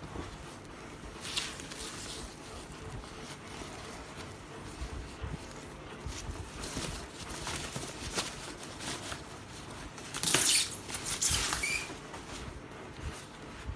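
Hands handling a full-face helmet and its packaging: scattered rustles and light knocks, with a louder crinkly rustle about ten seconds in.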